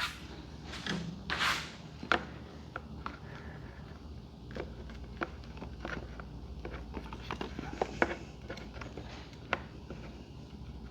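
Scattered light clicks and taps as a billet-aluminium luggage-rack bracket is handled and worked into place on a motorcycle's tail section, with a brief rustle about a second in.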